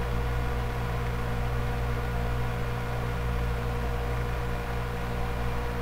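Steady low electrical hum with a thin hiss: room tone, with no distinct handling sounds.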